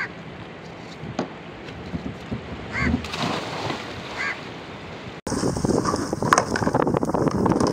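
Wind and sea water by an outrigger fishing boat, with a splash about three seconds in as a man drops into the shallows beside the hull, and two short honk-like calls. About five seconds in it cuts abruptly to louder wind buffeting the microphone and water sloshing around a capsized sea kayak.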